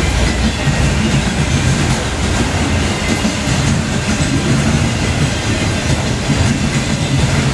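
Freight train of autorack cars rolling past at close range: a steady, loud noise of steel wheels running on the rails.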